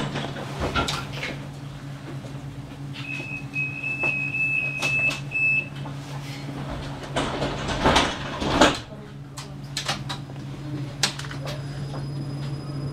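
Tram interior with the tram standing or barely moving: a steady low electrical hum from the tram's equipment, scattered clicks and knocks, and a steady high beep lasting about two and a half seconds from about three seconds in. A loud cluster of clattering knocks comes around eight seconds in.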